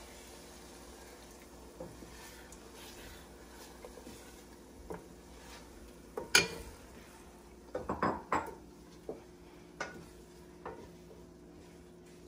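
Cooking utensil knocking and clinking against a pot during stirring. There are scattered sharp clinks, the loudest a single one about six seconds in and a quick cluster of several around eight seconds.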